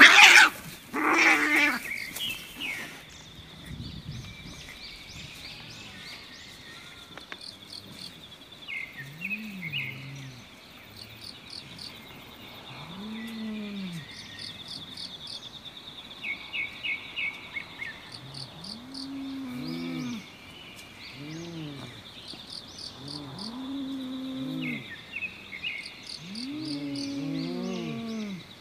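Two cats fighting: a loud screech and scuffle in the first two seconds, then a long series of low yowls, each rising and falling, as they face off. Insects trill and chirp steadily behind.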